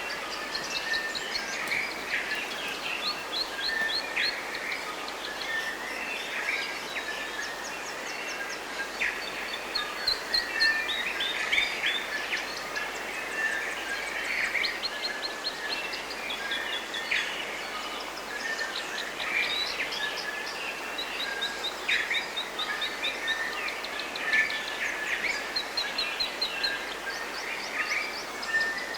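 Forest bird chorus: many birds singing and calling at once, with rapid repeated trills and short chirps, over a steady background hiss.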